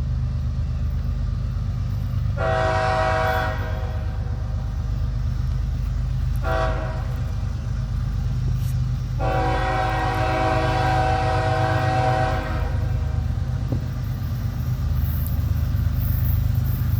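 Air horn of the lead BNSF ES44C4 locomotive sounding three blasts: two short ones, then a long one of about three seconds. A steady low rumble from the slowly approaching diesel train runs underneath.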